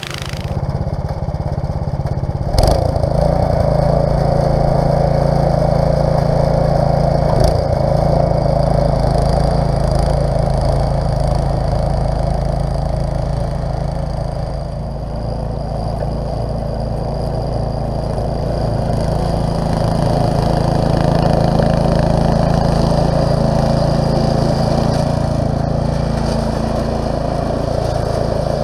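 Petrol snowblower engine running steadily under load while the machine chews and throws snow, with a sharp knock a couple of seconds in and another about five seconds later.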